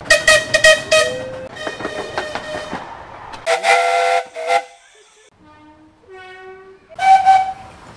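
Train horns and whistles sounding in a rapid series of short blasts, each at a different pitch: a few quick toots, a louder blast of several notes together about three and a half seconds in, two lower single notes after it, and a sharp high toot about seven seconds in.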